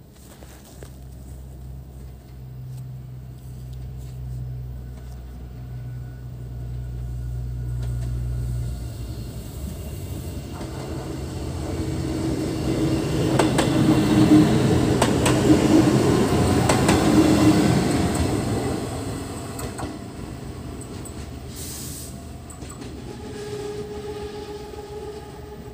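Diesel multiple unit SA133-011 running in and passing close on its way to a stop, its engine and wheels growing louder to a peak about halfway, with clicks of the wheels over the rail joints, then fading. A steady low hum runs under the first third.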